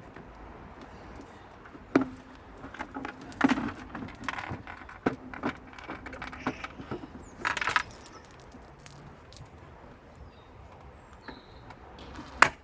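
Scattered clicks, knocks and light metallic clinks of hands and tools working on a car's rear bumper while it is fitted, with a short rustling burst midway and a sharp knock near the end, the loudest.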